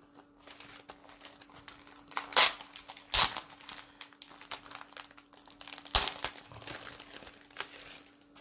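Clear plastic packet of a cutting-die set crinkling and rustling as it is handled and opened, with a few louder crackles about two and a half, three and six seconds in.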